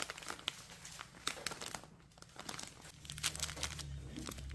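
Crinkly plastic snack packaging being handled, a run of sharp crackles and rustles that thins out after about two seconds.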